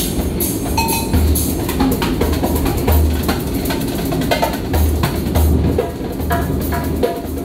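Hand drum played with bare hands in a steady rhythm: deep bass strokes about once a second mixed with quick sharp slaps and taps.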